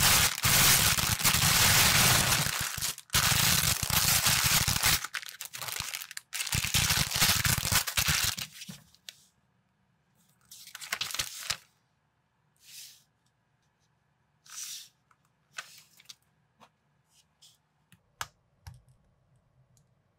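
Plastic polybags of building bricks loudly crinkled and torn open for the first eight seconds or so, with the loose parts rattling inside. After that come a few short rustles and, near the end, small sharp clicks of plastic minifigure parts pressed together.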